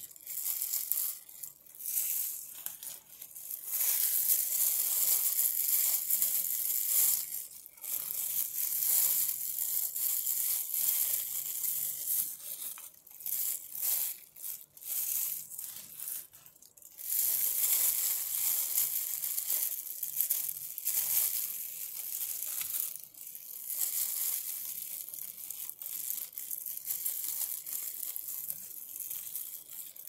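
Fresh pandan leaves torn lengthwise into strips by hand: a run of crisp ripping tears, some short and sharp, some drawn out over a few seconds.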